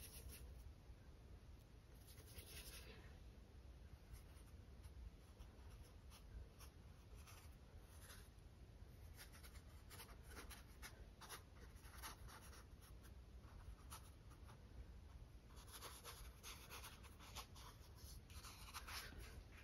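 Faint scratchy strokes of a paintbrush's bristles dabbing acrylic paint onto a stretched canvas, in short clusters that come thickest near the end.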